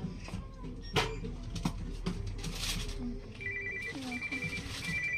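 An electronic ringer trilling in three short bursts of fast warbling two-tone beeps, starting about three and a half seconds in, over low shop background noise, with a sharp knock about a second in.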